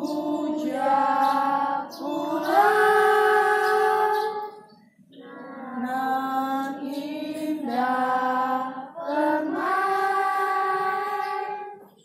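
Children singing a slow song in unison, holding long notes that step up and down, with a breath pause about five seconds in.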